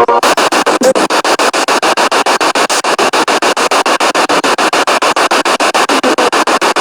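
Spirit box sweeping through radio stations: loud static chopped into rapid, even pulses, several a second, with brief fragments of broadcast sound between them.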